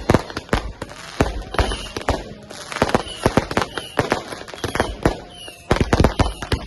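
Fireworks going off in quick, irregular succession: many sharp bangs and crackles a second, with short whistles among them and a dense burst of bangs near the end.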